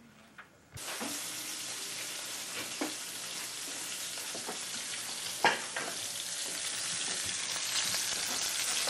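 Small battered snapper bluefish sizzling steadily as they pan-fry in oil, starting abruptly about a second in and growing slightly louder toward the end. A couple of sharp knocks of a cooking utensil against a pan come through, the loudest about halfway.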